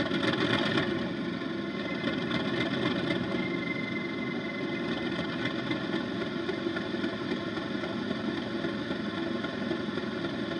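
A DCC sound decoder in a model Class 37/4 diesel locomotive playing a Class 37's English Electric engine idling, through a small speaker. The sound is steady throughout.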